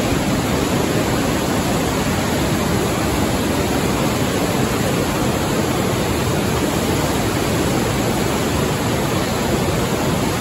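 Glacial meltwater torrent rushing through a narrow rock gorge: a loud, steady roar of whitewater.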